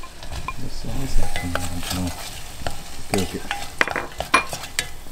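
A wooden spatula stirring and scraping vegetables frying in a stainless steel saucepan, over a steady sizzle. Frequent short clicks and knocks come from the spatula against the pan, with a cluster of duller knocks a little over a second in.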